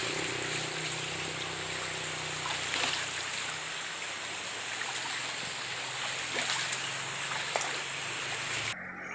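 River water rushing and flowing steadily, with a faint low steady hum underneath. The water sound cuts off abruptly near the end.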